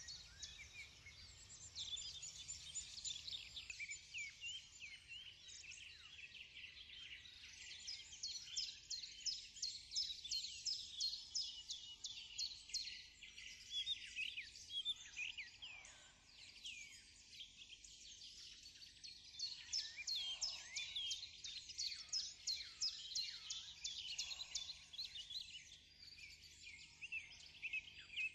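Many small birds chirping and twittering at once: a dense, high-pitched chorus of quick, overlapping calls.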